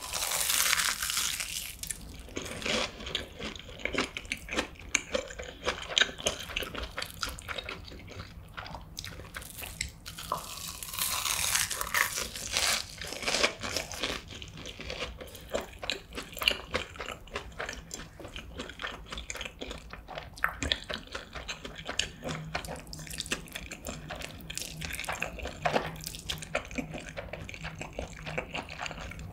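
Close-miked crunching and chewing of a breaded, deep-fried cheese pork cutlet with spicy stir-fried noodles on it. Loud crisp crunches come at the first bite and again about ten seconds in, then softer wet chewing, with noodles slurped near the end.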